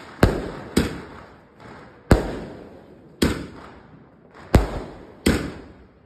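A Moorthy Antiquity 100-shot firework cake firing: six sharp bangs at uneven gaps of roughly a second, each trailing off before the next.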